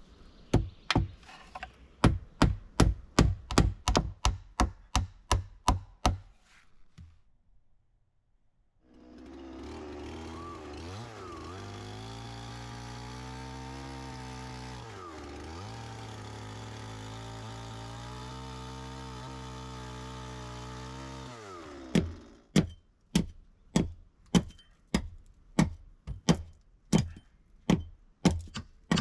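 Evenly spaced sharp blows on wood, about three a second, then a short pause, then a chainsaw cutting into a log wall, its engine pitch dipping a few times under the load of the cut. After the saw stops come more regular blows on wood, about two a second.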